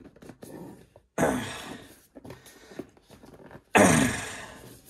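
Two short effortful huffs or grunts from a man, about two and a half seconds apart, each starting sharply and fading away, as he strains to pull apart a tight-fitting cardboard box.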